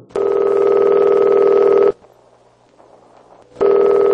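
Telephone ringing: one ring of about two seconds, a pause, then the next ring starting near the end.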